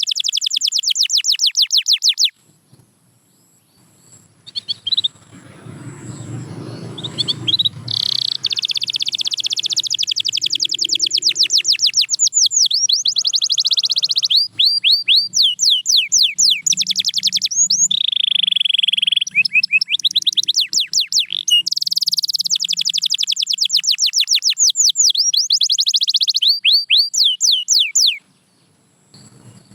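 Canary singing in fast trills of rapidly repeated notes, with some phrases of quick rising and falling sweeps. The song breaks off briefly a couple of seconds in and again near the end.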